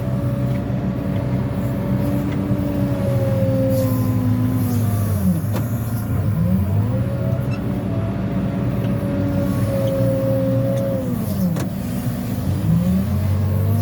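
Cat 416F2 backhoe loader's diesel engine running hard, its pitch sagging and then climbing back twice, about five seconds in and again near the end, as engine speed changes through the loading work.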